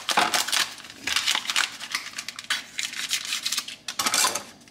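Jell-O packaging being opened: an irregular run of crinkling, rustling and tearing of paper and plastic.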